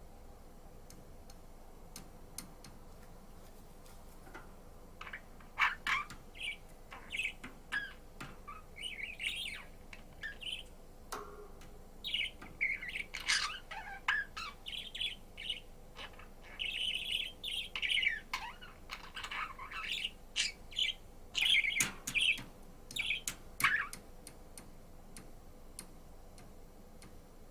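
Budgerigar chirping and warbling in quick bursts of short high notes, starting about five seconds in and stopping a few seconds before the end.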